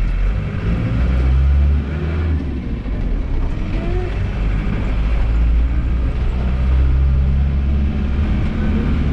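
Steady low engine drone and road noise from a Land Rover 110, heard from inside the vibrating cabin while driving.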